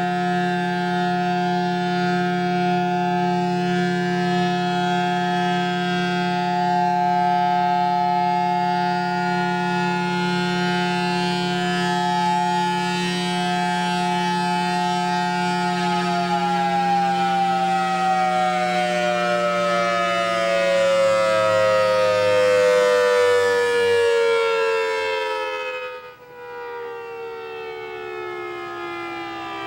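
Federal Signal Thunderbolt 1000T warning siren, reverse-wired, holding a steady, loud chord of tones over a low hum. About halfway through it begins winding down, the pitch falling steadily. A brief sharp drop in loudness comes near the end, and the falling tone carries on after it.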